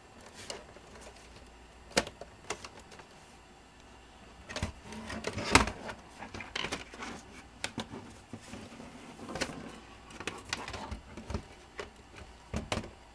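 Irregular plastic clicks, creaks and scrapes as a laptop's plastic case panel is pried at by hand, with the sharpest snap about five and a half seconds in. The panel is not popping off easily because a screw holding it was missed.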